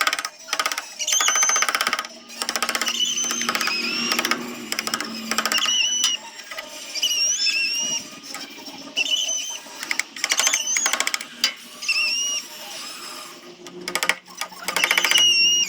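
Power sanding tool working a zelkova root in repeated short bursts: a fast buzzing rattle with a high whine that bends a little, stopping and starting every second or so.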